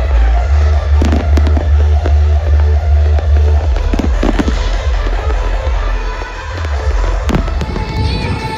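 Fireworks going off, with several sharp bangs over loud music that has a heavy, pulsing bass beat.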